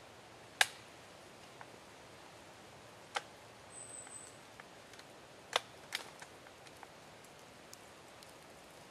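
Quiet woodland background with a few sharp clicks, the loudest about half a second in and others about three, five and a half and six seconds in. There is also a brief high-pitched note about four seconds in.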